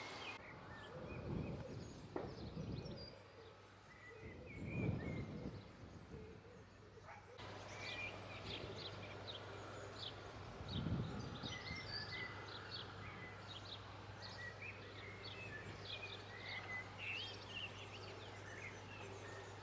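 Quiet outdoor ambience of small birds chirping and twittering, growing busier partway through, with a few soft low rumbles.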